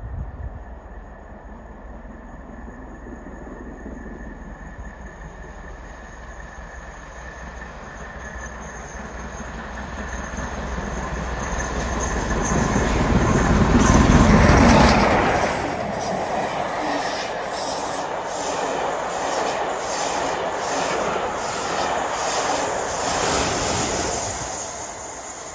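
LMS Stanier Black Five 4-6-0 steam locomotive working hard through a station, growing louder as it approaches and loudest as it passes about halfway through. Its coaches then roll by with a regular clatter of wheels over rail joints, and the Class 47 diesel on the rear passes near the end.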